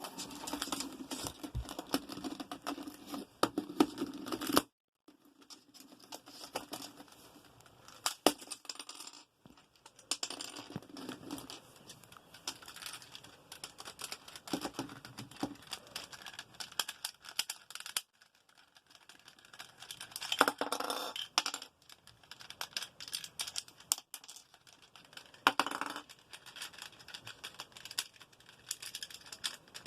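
Cockatoo working a plastic Rubik's cube with its beak: irregular clicking, rattling and scraping of the plastic, with a short pause about five seconds in.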